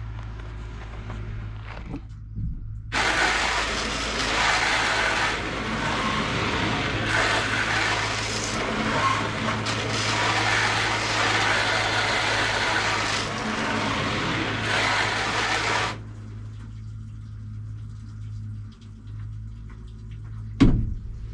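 Water spraying and splashing onto a truck windshield for about thirteen seconds, with a few brief breaks, as a leak test of a newly fitted windshield and rubber seal. A low steady hum runs underneath, and there is a single sharp knock near the end.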